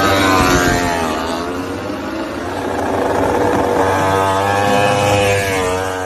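Ducati MotoGP racing motorcycle engine running at high revs, its pitch dropping about a second in, climbing back and dropping again near the end.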